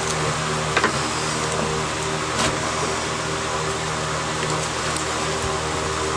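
Steady hum of a running fan or blower, with a couple of faint light clicks about a second in and about two and a half seconds in.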